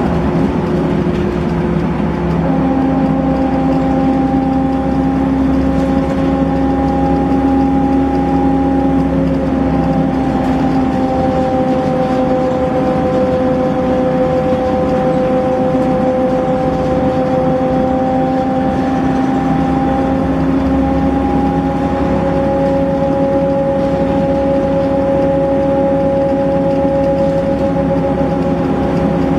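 Inside a Volvo B7RLE single-deck bus under way: its 7-litre six-cylinder diesel and ZF automatic gearbox running steadily, with a whine held at a near-constant pitch that shifts slightly a few times, over low road rumble.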